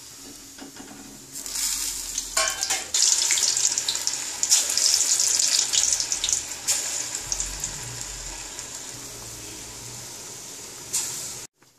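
Hot oil in an iron kadai sizzling and crackling as urad dal bondas deep-fry. The sizzle grows louder about three seconds in, slowly dies down, and cuts off abruptly near the end.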